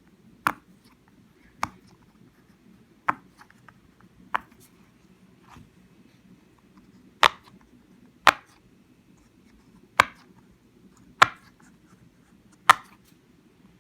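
Silicone pop-it fidget puppet having its bubbles pushed in one at a time. About ten sharp pops come roughly every second and a half, with one faint one in the middle.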